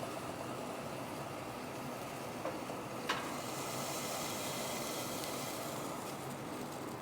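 Steady hiss of water drops skittering and sizzling on a very hot empty pot, with two small ticks about two and a half and three seconds in.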